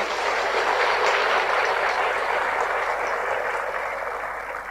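Large audience applauding, a steady wash of clapping that dies away near the end.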